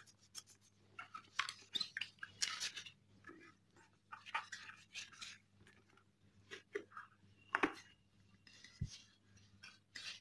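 A foam pad rubbing cutter polish over a motorcycle helmet's hard shell to buff out small scratches: irregular scratchy scrubbing strokes, with one sharper stroke about seven and a half seconds in. A faint steady low hum runs underneath.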